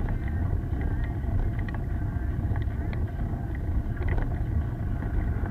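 Steady wind buffeting on the microphone and low road rumble from a camera riding along a rough road shoulder, with scattered light rattling ticks.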